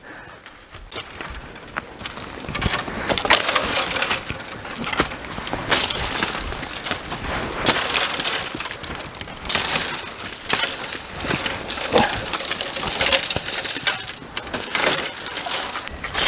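Footsteps crunching over dry leaf litter and twigs, with irregular crackles and snaps as dry bamboo stems and leaves brush and break against the body.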